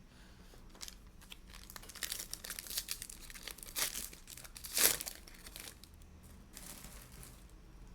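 Plastic-foil wrapper of a Donruss basketball card pack being torn open and crinkled in the hands, a run of crackling rustles with one sharp loud crinkle near the middle and a softer one near the end.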